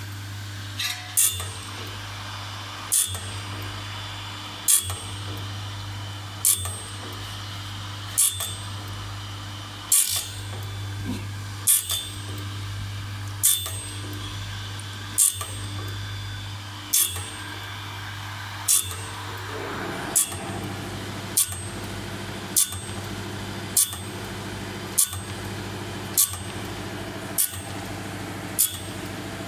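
Automatic band saw blade sharpening machine running: a steady motor hum with a sharp metallic click repeating about every two seconds. After about twenty seconds the machine's sound changes and the clicks come quicker, about every second.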